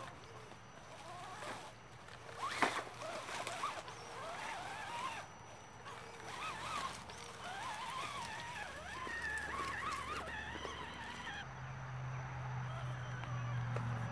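Electric motor and gears of an RC scale crawler whining as it climbs a dirt slope, the pitch wavering up and down with throttle and load, with a sharp knock about two and a half seconds in.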